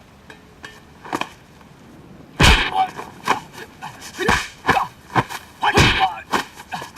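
Dubbed kung-fu film fight sound effects: after a quiet start with a few light clicks, a rapid string of loud punch and kick impacts about every half second begins a little over two seconds in, mixed with the fighters' shouts and grunts.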